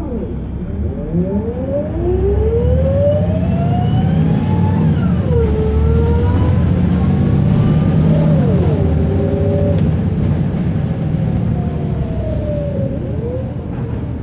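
Volvo B7RLE bus's 7-litre six-cylinder diesel and driveline whine heard from on board as it accelerates: the pitch rises, drops at a gear change about five seconds in, rises again, drops at another change a few seconds later, then falls away as the bus slows near the end.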